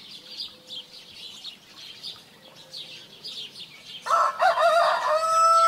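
Small birds chirping repeatedly, then about four seconds in a rooster crows: a loud call that wavers at first and then holds one steady note.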